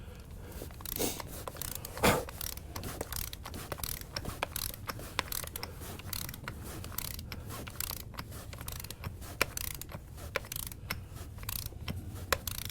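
Ratchet wrench clicking in quick, uneven runs while a nut is turned on a wedge anchor, over a low steady hum.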